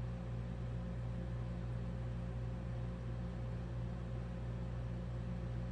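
Steady low hum with a faint, higher steady tone over a light hiss, with no distinct event.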